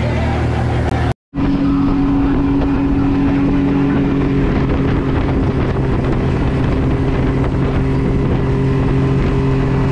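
Honda 50 hp four-stroke outboard motor running at steady cruising speed, pushing a small boat, with wind rushing over the microphone. The sound cuts out for an instant about a second in, then carries on at the same even pitch.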